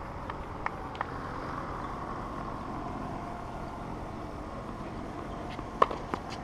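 Tennis balls struck by rackets on an outdoor hard court: a few faint taps in the first second, then sharp pops near the end as the point gets under way, the loudest just before the end. Under them runs a steady low outdoor hum.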